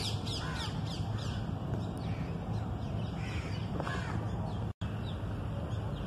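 Birds calling, mostly crows cawing: a run of quick falling calls in the first second or so and another call near four seconds, over a steady low rumble. The sound drops out for an instant just before the five-second mark.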